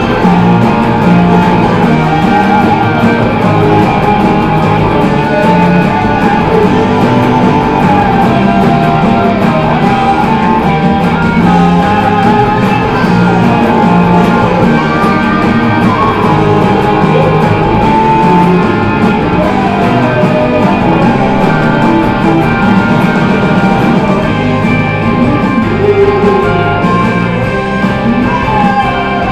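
Band music, guitar-led, with a gliding melody line over a steady beat and bass: an instrumental stretch of a rock or pop song.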